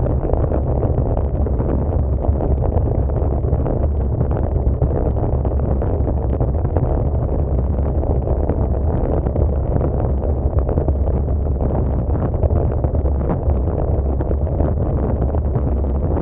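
Steady low wind rumble buffeting the microphone of a camera riding along on a racing bicycle, mixed with road and tyre noise.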